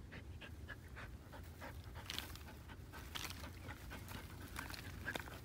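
Dog panting and sniffing with its nose pushed into a hole in the dirt, in quick short breaths several times a second, a few of them louder.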